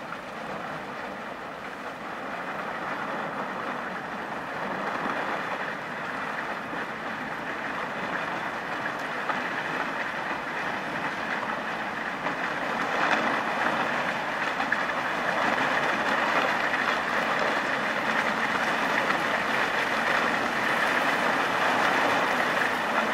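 Steady crunching and grinding of broken pancake ice against the hull of a large ice-coated Great Lakes freighter pushing slowly through the ice, growing louder as the bow draws near.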